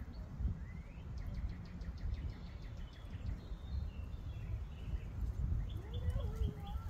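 Songbirds chirping, with a fast trill about a second in, over an uneven low rumble.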